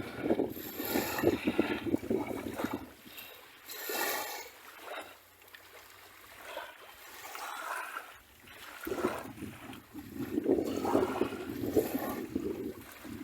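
Sea waves washing up a beach: surf washing in for the first few seconds, a quieter lull with one small surge, then another wave washing in about nine seconds in.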